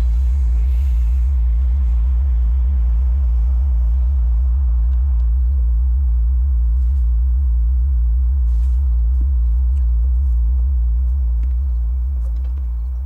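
Deep, loud, pulsing low drone of horror-film sound design, steady until it fades out near the end.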